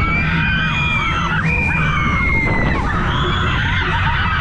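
Many people screaming together on a fairground ride, in long overlapping screams, over loud funfair music with a heavy bass.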